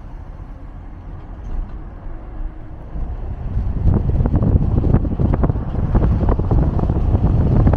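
A car driving: low rumble with some wind noise, growing louder about four seconds in with frequent knocks and rattles, as from a bumpy road.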